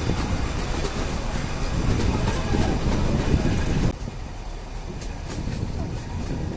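Nilgiri Mountain Railway metre-gauge toy train running slowly, its coach wheels rumbling and clattering on the track, heard from on board. The noise drops suddenly about four seconds in and carries on more quietly.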